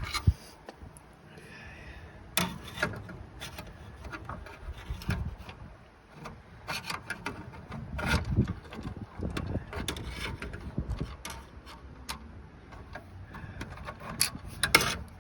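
Hand work on a car's bonnet release cable fitting: scattered small clicks, knocks and scraping of tools and metal parts being handled.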